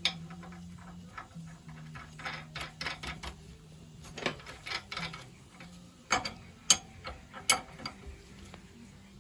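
Irregular metallic clicks and taps of small pump parts and fittings being handled and fitted, with the sharpest knocks in the second half. A faint low steady hum runs under the first half.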